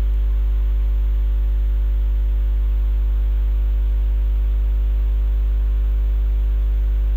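Loud, steady low electrical mains hum with a row of fainter overtones above it, unchanging throughout.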